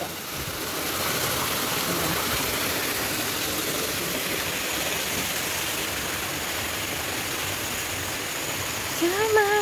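Small rock-wall waterfall splashing steadily into a pond. About nine seconds in, a voice calls out over it on a held note.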